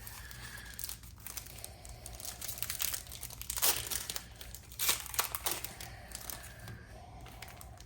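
A trading card pack's wrapper being crinkled and torn open by hand, with a couple of sharper rips about three and a half and five seconds in.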